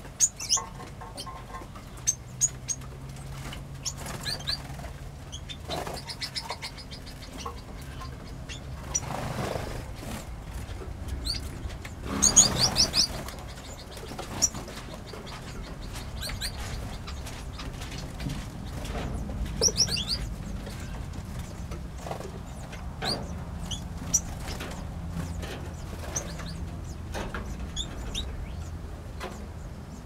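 Small aviary birds (finches and canaries) giving short, high chirps scattered throughout, with wing flutters; a louder flurry of flapping and chirping comes about twelve seconds in.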